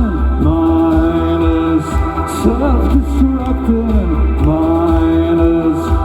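Band music: a heavy, steady low bass under long held melodic notes that slide from one pitch to the next in a chant-like line.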